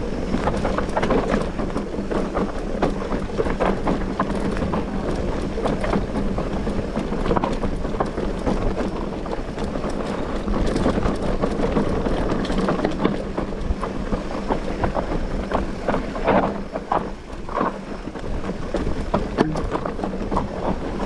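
Mountain bike rolling over a rough trail: tyres on stones and gravel, with a constant clatter of knocks and rattles from the bike over the bumps.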